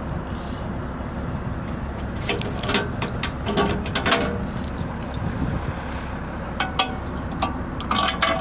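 A key working a brass padlock on a steel panel door, with metal clicks and rattles of key, lock and hasp about two to four seconds in and again near the end as the lock comes off and the door opens, over a steady low rumble.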